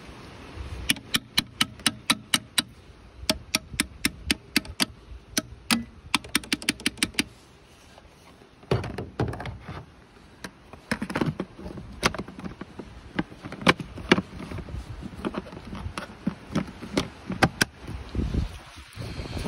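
A metal hand tool tapping repeatedly on a BMW's ABS hydraulic unit. First comes a quick run of about four to five sharp taps a second for several seconds, then after a short pause a series of heavier, irregular knocks. The knocking is meant to jar a suspected cold-soldered connection between the ABS control unit and its pump, the cause the owner gives for the 5DF0/5DF1 hydraulic pump fault codes.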